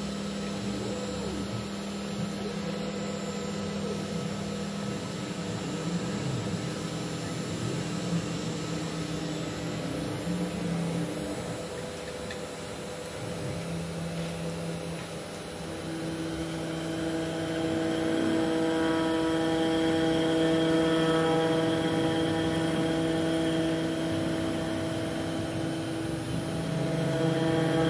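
Mini five-axis CNC machine running a carving program on a wooden blank: motor whine in several steady tones that shift pitch every few seconds as the axes move, growing louder about halfway through.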